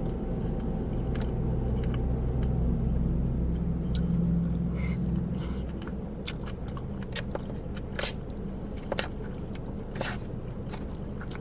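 A person chewing and biting takeout Chinese food close to the microphone, with scattered short wet clicks of the mouth. Under it runs a steady low hum that eases off about halfway through.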